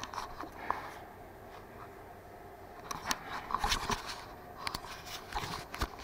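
Scattered small clicks, knocks and rubbing from handling: a computer mouse being used, then the handheld camera being picked up and turned around, with a busier cluster of knocks a few seconds in.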